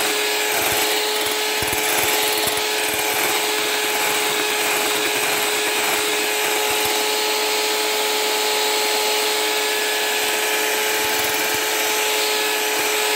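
Electric mixer running at a steady speed, its beaters whipping egg whites in a glass bowl, which are nearly at stiff peaks.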